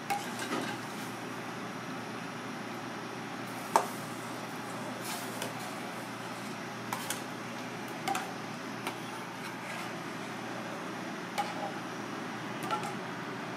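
Metal ladle clinking against an aluminium saucepan while broth is stirred: irregular sharp taps, the loudest a little under four seconds in, over a steady background hiss.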